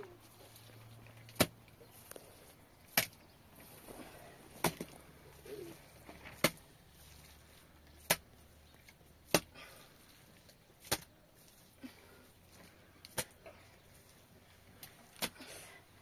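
Repeated sharp blows of a hand tool striking wood, about nine strokes spaced roughly a second and a half apart, some followed by a lighter tap.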